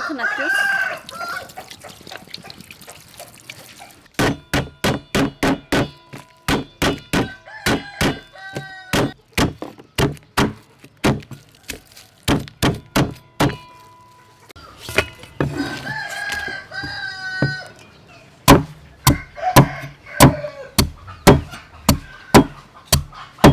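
A cleaver chopping lemongrass and galangal on a wooden chopping board: long runs of sharp, even knocks, about two to three a second, loudest near the end. A rooster crows in the background at the start and again about two-thirds of the way through.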